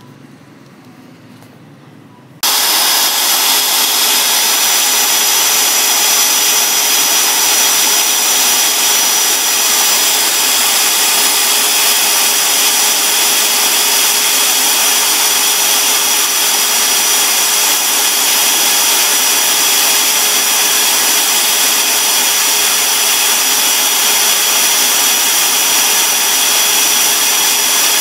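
Small power tool running steadily while a wooden chopstick is ground to a point against an abrasive strip; the loud, even whir comes on suddenly about two seconds in.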